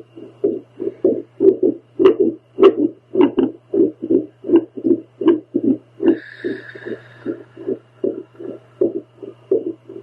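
A woman's heartbeat picked up through a home doppler: fast whooshing pulses, uneven in spacing and strength, an irregular heart rhythm, over a steady low hum from the device. A brief hiss sounds about six seconds in.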